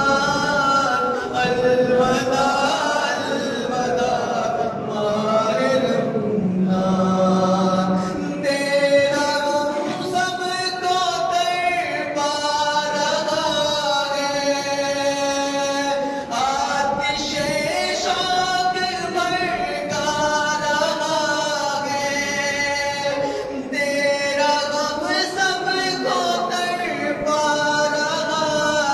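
A man's voice singing unaccompanied devotional verse in long, drawn-out notes that bend and waver in pitch, with no instruments.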